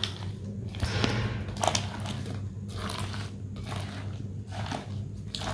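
Silicone spatula stirring chopped fruit and whipped cream in a glass bowl, about two strokes a second, over a steady low hum.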